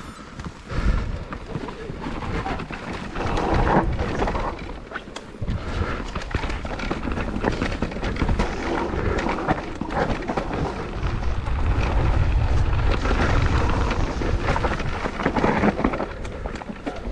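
Mountain bike ridden down a rough trail: tyres rolling over dirt and rock and the bike rattling and knocking over bumps, with wind rumbling on the microphone.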